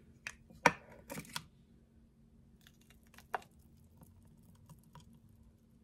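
Plastic clicks and knocks as the lid of a BlendJet portable blender jar is taken off, the loudest about a second in, then a thick protein shake poured quietly from the jar into a glass.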